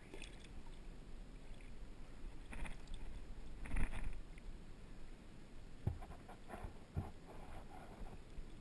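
Water splashing as a hooked smallmouth bass is grabbed in the river and lifted out by hand, with the loudest splash about four seconds in. A couple of short knocks follow near the end, over a low rumble of wind on the microphone.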